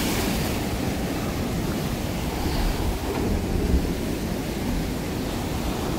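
Rough sea surf washing steadily against shoreline rocks, with wind rumbling on the microphone.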